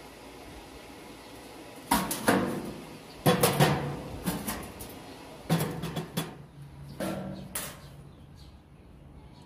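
Metal clanking: irregular clusters of sharp knocks as tools and welding magnets are handled against a sheet-steel box. Each knock rings briefly, and there are four groups of strikes.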